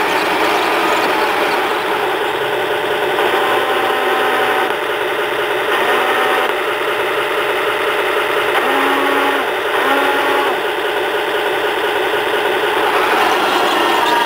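Heng Long Tiger 1 RC tank running, heard from on board: a steady mechanical whir and rattle of its gear motors and tracks, with short higher motor whines four times as it turns.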